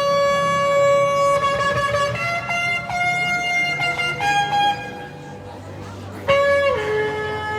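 Shofar blown in long held blasts: a steady note, then a higher one after about two seconds, a short lull, and about six seconds in a new blast that starts sharply and drops to a lower held pitch.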